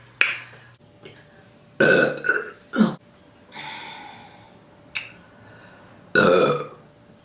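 A person burping several times in a row with short pauses between, the loudest burps about two seconds in and again near the end.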